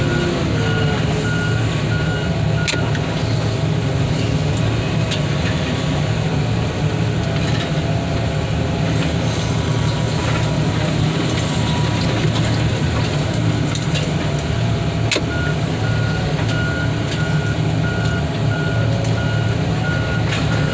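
Heavy equipment diesel engine running steadily, with a backup alarm beeping at a regular pace for the first couple of seconds and again over the last five or so.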